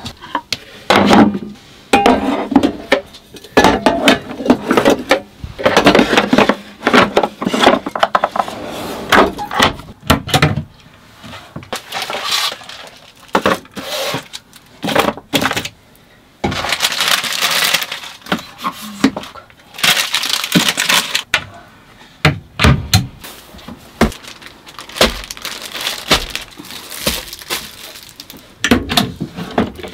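Irregular handling noises: rustling, clicks and knocks as things are moved about and set down, with no steady rhythm.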